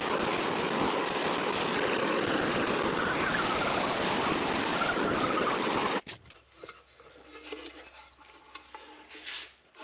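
Steady rushing, grinding noise from work on the aluminium intake manifold, which cuts off abruptly about six seconds in. After it come faint scattered clicks and scraping of tools on the manifold.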